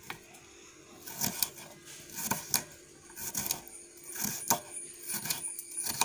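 Kitchen knife chopping raw green mango into small pieces on a wooden chopping board: irregular sharp taps of the blade striking the board, about two a second.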